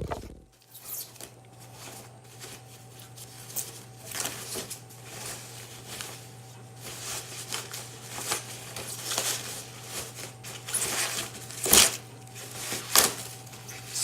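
Styrofoam packing and plastic wrapping being pulled and rustled off a guitar: repeated scraping and crinkling, with two sharper knocks near the end.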